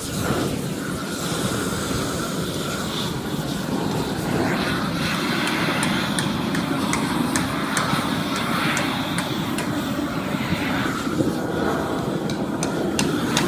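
Propane roofing torch running with a steady roar, with light sharp ticks now and then in the second half.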